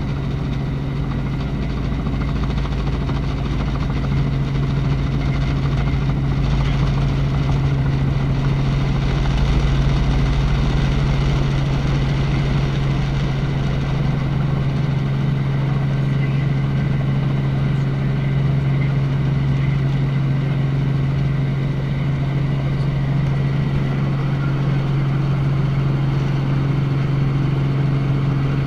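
Helicopter engine and rotor running steadily: a constant loud hum with a low rumble underneath that eases slightly about a third of the way through.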